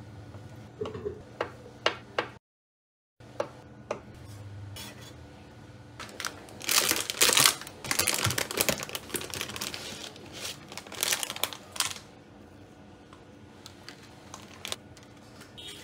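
A few light clicks of a knife and fork against a wooden cutting board as a sausage is sliced, then, after a short dropout, a plastic pack of rice paper sheets crinkling and rustling as it is handled, loudest in the middle and fading to a few scattered taps near the end.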